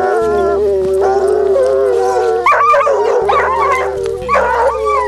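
Pack of Ariégeois scent hounds giving tongue on a hare's scent: one long drawn-out howl for the first two seconds or so, then several dogs crying at once in shorter, overlapping howls.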